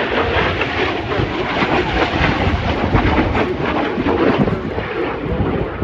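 Loud, continuous rushing rumble with no clear pitch.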